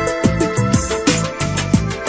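Background music with a steady beat and deep bass notes that drop in pitch on each stroke.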